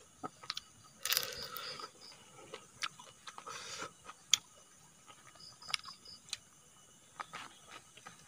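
Close-up eating sounds: a person chewing and biting into cooked sugar palm grubs, with scattered small clicks and crunches and a couple of short noisy bursts.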